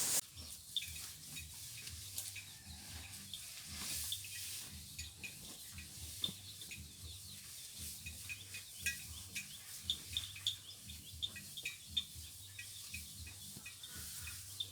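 Faint, scattered short bird chirps, many small calls in no steady rhythm, over a low uneven rumble.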